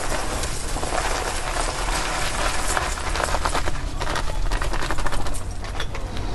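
Granular industrial salt poured from a sack into an earthing pit, a steady hiss of grains with many fine ticks as it lands on the charcoal bed.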